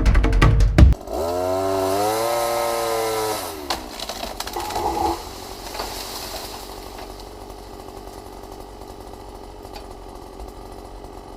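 Brief music, then a two-stroke saw engine revs high for a couple of seconds, pitch rising and falling, before dropping back; after a short burst about five seconds in it runs at a quieter idle.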